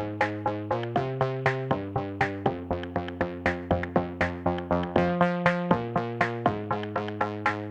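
Background electronic music: plucked synthesizer notes in a steady beat of about four notes a second, over chords that change every second or so.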